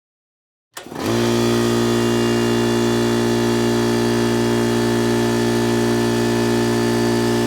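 Heat pump condensing unit running: a steady compressor hum with fan noise over it, coming on abruptly about a second in and holding level.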